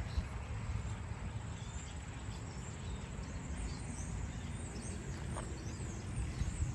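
Small birds chirping, many quick high chirps in a row, over a steady low outdoor rumble.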